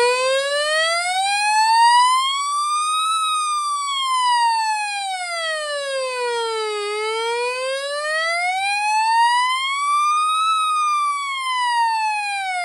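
Weather radio's alert-test siren sounding from its speaker: a loud electronic wail that rises and falls slowly and evenly, each sweep up or down taking about three and a half seconds.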